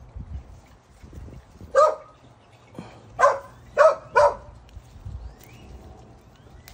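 A dog barking: a single bark about two seconds in, then three more in quick succession.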